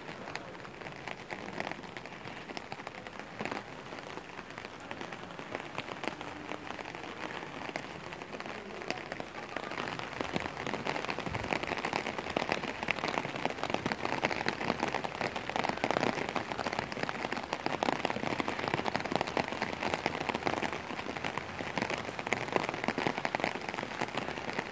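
Rain falling and pattering in many fine drops, growing heavier about ten seconds in.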